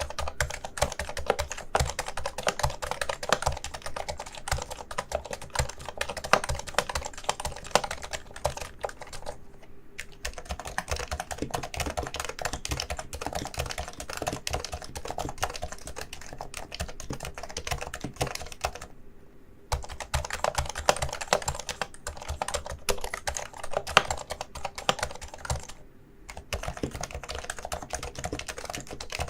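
Fast, continuous typing on a Realforce keyboard with Topre electrostatic-capacitive switches (rubber dome over a conical spring): a dense run of keystrokes, broken by short pauses about ten, nineteen and twenty-six seconds in.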